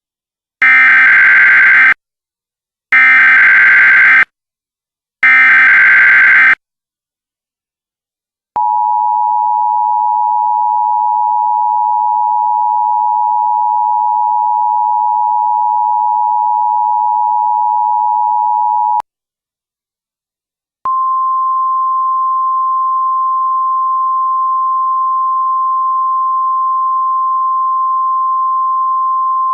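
Emergency Alert System alert sequence. Three harsh, screeching bursts of the SAME digital header come first, each a little over a second long. After a pause the two-tone attention signal sounds steadily for about ten seconds. After another short pause a single, slightly higher steady weather-radio alert tone begins. Together they herald a new warning broadcast.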